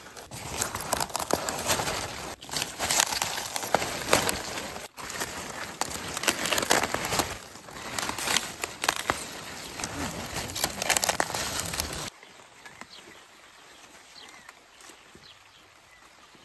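Crisp, crinkly rustling and crackling of Napa cabbage leaves as plants are pulled and handled, full of small sharp snaps. About twelve seconds in it cuts off suddenly to a faint, quiet background.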